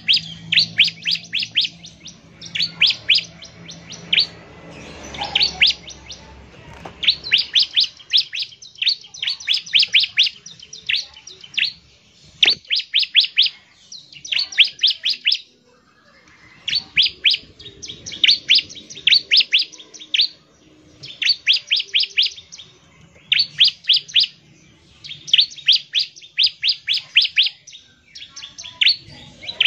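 Bar-winged prinia (ciblek) singing its rapid-fire 'nembak' song: runs of about half a dozen quick, sharp, high notes, each run about a second long, repeated every couple of seconds.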